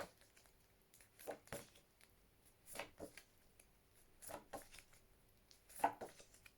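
Small phonics flash cards being handled and flipped one after another: a soft paper rustle or tap about every second and a half, four times.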